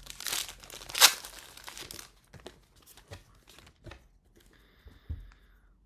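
Foil wrapper of a trading-card booster pack crinkling and being torn open, loudest in the first two seconds with a sharp rip about a second in, then quieter clicks of handling.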